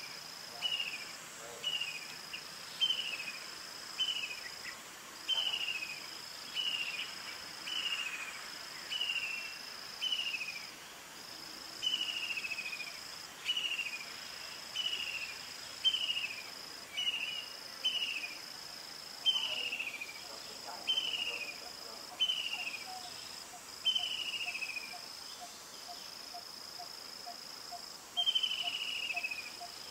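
Outdoor insect chorus: a steady high-pitched buzz that breaks off briefly every couple of seconds, with a short falling chirp repeated roughly once a second. A faint, quick ticking joins lower down about three quarters of the way through.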